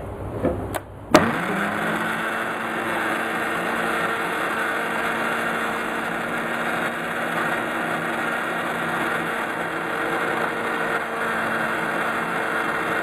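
Electric blender switched on about a second in after a couple of clicks; its motor spins up and then runs steadily, pureeing chunks of mango into pulp.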